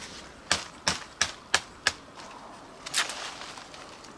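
Sheath knife chopping into a wooden branch to shape a hook: a run of about five sharp knocks roughly three a second, then one more about three seconds in.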